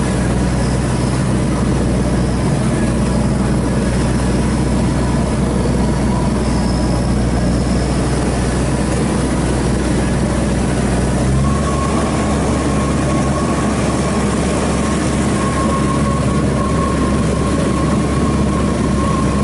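Heavy diesel farm-machine engine running steadily and loudly, with a faint whine above it; the engine note shifts about two-thirds of the way through.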